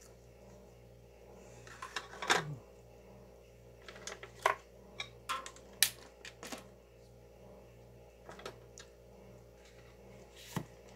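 Irregular light clicks and knocks of plastic cups, a plastic pour ring and paint supplies being picked up and set down on a cluttered worktable, the loudest knock about two seconds in.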